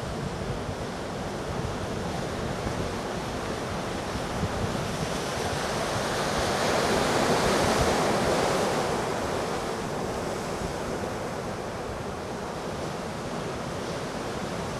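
Heavy hurricane surf breaking and washing over a rock jetty, a steady rushing roar that swells into a louder wave crash about halfway through. Wind buffets the microphone throughout.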